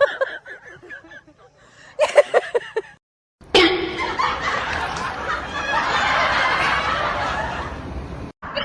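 A person laughing in short rhythmic bursts. After a brief silent cut, a sudden loud, noisy outburst starts and runs for about five seconds.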